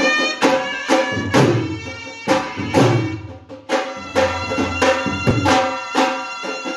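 A shehnai-type double-reed pipe plays a nasal, wavering melody over loud stick-beaten strokes from two dhol barrel drums, in a live folk band.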